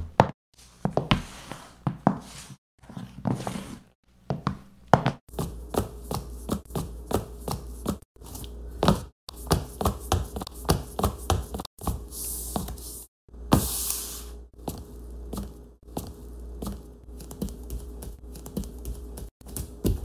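Foley footstep recordings played one after another: runs of steps in different footwear on different surfaces, each run a few seconds long and cut off by a brief silence. Two longer hissy scrapes come a little past the middle.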